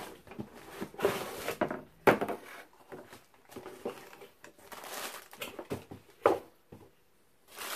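Cardboard box and plastic packaging handled as a mirror in a plastic bag is slid out of its box: irregular scraping and rustling with plastic crinkling and a couple of sharper knocks.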